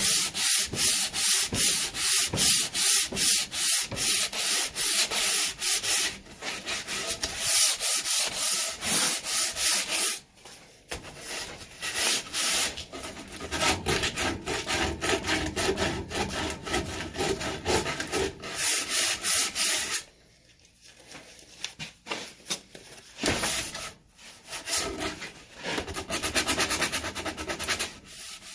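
Sandpaper rubbed back and forth along a wooden axe handle in repeated scratchy strokes, stripping the handle's slippery factory finish. The strokes pause briefly about 20 seconds in, then come quicker near the end.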